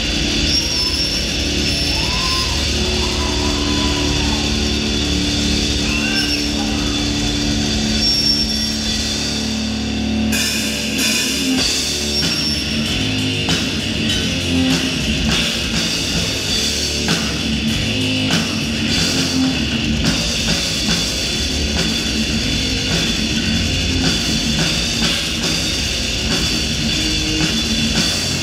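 A heavy metal band playing live, with distorted guitars and a pounding drum kit. It is captured by the camera's own microphone rather than the mixing desk, so it sounds loud and raw. The mix shifts about ten seconds in.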